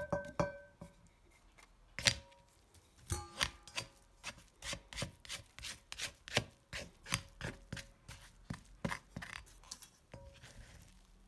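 Spatula scraping and tapping crushed fresh woad leaves around the grooved inside of a ceramic suribachi mortar, a quick run of sharp strokes about three a second.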